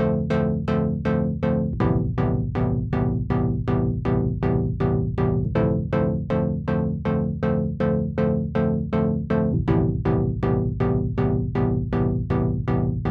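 Arturia JUN-6V software synthesizer, an emulation of the Roland Juno-6, playing its "In Da House" factory preset. It plays a house pattern of short repeated notes, about three or four a second, over a low bass line, and the harmony changes a few times.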